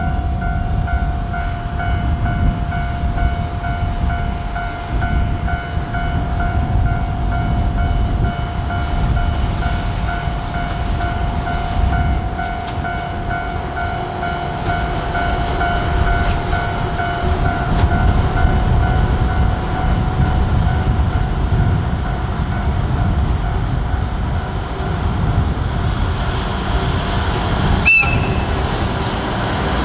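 Diesel freight locomotive running with a heavy low rumble and a steady whine. Near the end comes a sharp click and a brief high beep.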